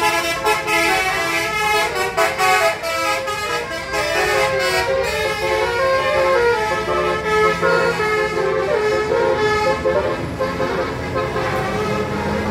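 A bus's 'telolet' multi-tone musical horn playing a tune, its notes stepping up and down in quick succession.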